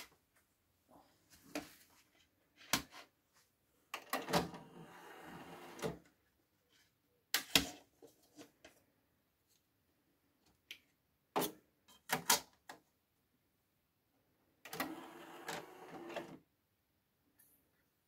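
CD tray of a Sony CMT-CP33MD micro hi-fi sliding out about four seconds in and back in near the end, each run lasting about two seconds. Sharp clicks of button presses and handling come in between.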